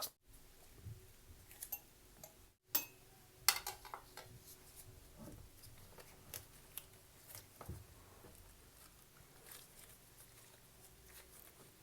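Quiet kitchen handling sounds while a lemon is prepared for juice: scattered light clicks and knocks of a knife and utensils, the sharpest about three and a half seconds in.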